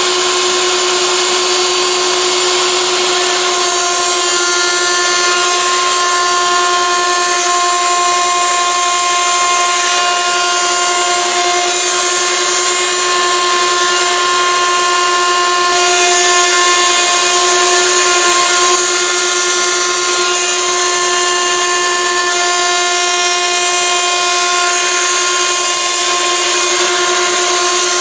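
CNC router spindle cutting a pocket into black acrylic sheet, running steadily with a high whine, with a shop vacuum hose drawing away the chips beside the cutter.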